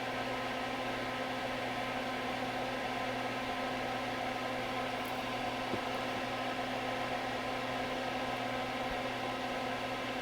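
Steady electrical hum with an even fan-like hiss from bench equipment.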